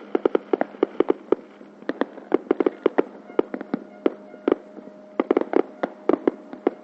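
Many fireworks going off at once: a dense, irregular run of sharp bangs and pops, several a second, some loud and close, others fainter, with a faint steady hum underneath.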